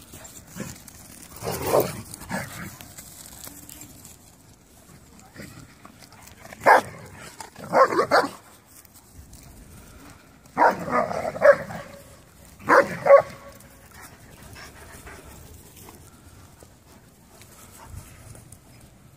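Dogs barking in play, in short bursts: once about two seconds in, a pair around seven to eight seconds, a cluster around eleven seconds and another around thirteen seconds.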